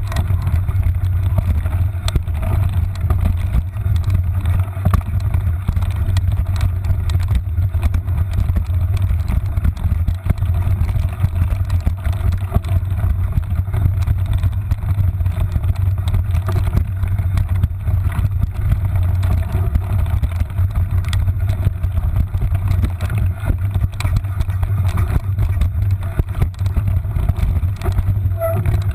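Mountain bike riding fast down a rough dirt trail, picked up by a handlebar-mounted GoPro: a steady low rumble of tyre and frame vibration with frequent rattles and knocks from the bike over the bumps.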